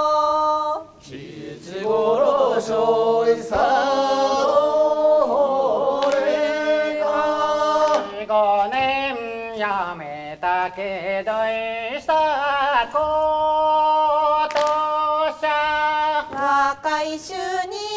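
Unaccompanied Japanese folk singing by a group of voices: long drawn-out melismatic phrases, with notes held and sliding up and down.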